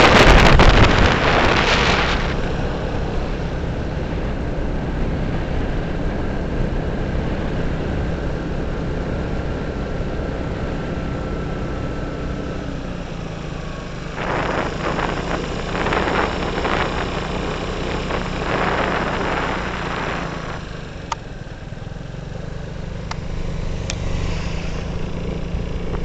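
Motorcycle engine running steadily while riding along a road, with loud rushing noise over it at the start and again in bursts in the middle.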